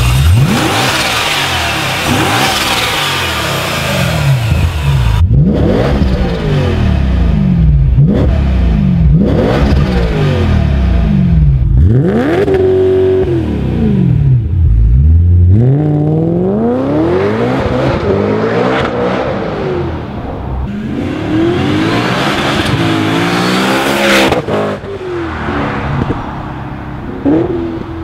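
Supercharged BMW E92 M3 S65 V8 with a Megan Racing cat-delete exhaust, revved over and over. The pitch climbs and drops back every two to three seconds, with one rev held high briefly about halfway through.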